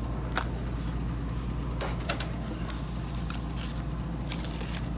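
A few faint clicks and light rustles of sealed baseball card packs being handled, over a steady low hum.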